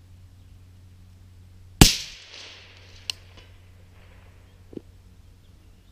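A single shot from a suppressed AR-15 SPR rifle (SilencerCo Omega suppressor) about two seconds in: one sharp report with a short echoing tail.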